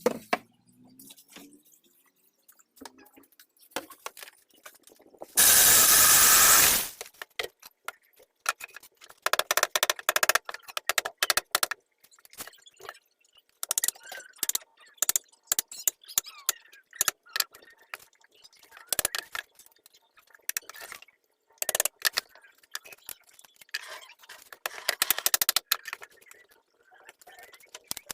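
Clicks, knocks and scrapes of tools and parts being handled while repairing a child's chair, coming in irregular clusters, with one loud burst of noise lasting about a second and a half about five seconds in.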